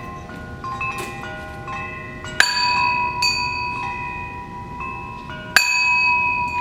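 Several bells struck one after another, their tones overlapping and ringing on. Two louder strikes come about two and a half and five and a half seconds in, each ringing long after.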